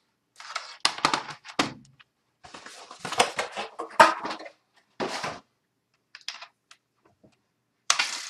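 Unboxing handling sounds in short bursts: a Microsoft Digital Media Keyboard 3000 being set down on a wooden desk with its keys rattling, and plastic packaging crinkling.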